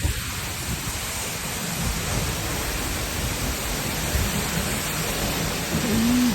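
Steady roar of a waterfall's falling water and spray, with a short hum near the end.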